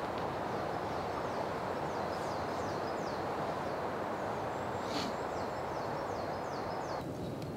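Woodland dawn ambience: a steady rushing hiss with small birds singing short, high, falling notes over it. The rush thins about seven seconds in.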